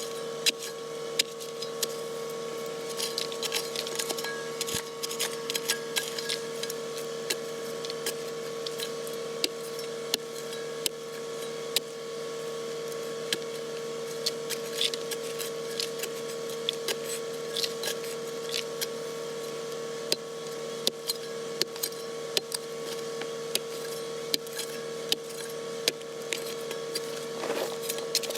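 Kubota KX080 excavator working, its engine and hydraulics giving a steady whine, with frequent sharp metallic clicks and rattles.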